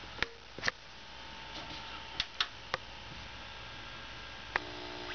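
Several sharp clicks as an Orion CRT television is switched on: two near the start, three about two seconds in, and one more about four and a half seconds in. After that last click the set's sound comes up faintly as a steady tone.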